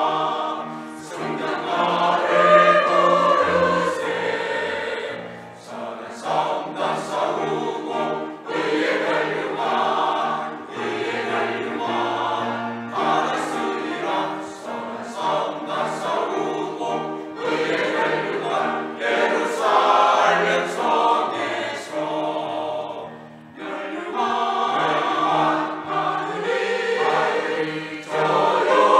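Church choir singing a choral anthem in several parts, sustained phrases with brief breaths between them.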